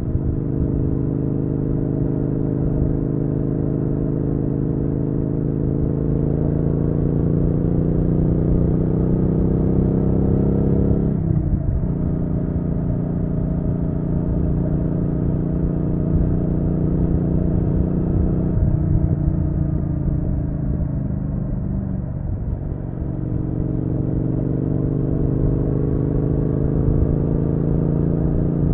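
Triumph Street Twin's 900 cc parallel-twin engine pulling on the road, its pitch climbing slowly. It drops sharply about eleven seconds in, as at a gear change, sinks again from about 18 to 22 seconds as the throttle eases, then climbs once more.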